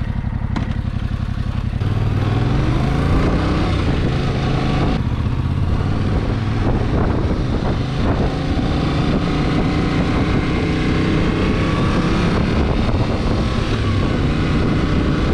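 Yamaha Tracer 7 motorcycle's parallel-twin engine idling just after starting, then pulling away, its revs climbing and dipping briefly about five seconds in as the bike accelerates.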